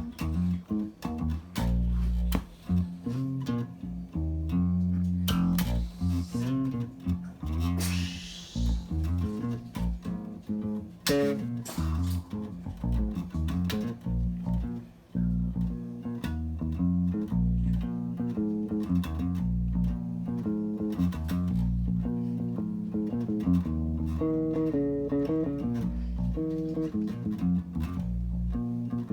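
Electric bass guitar played through a vintage tube compressor: a continuous run of plucked notes and riffs, with one brief break about halfway.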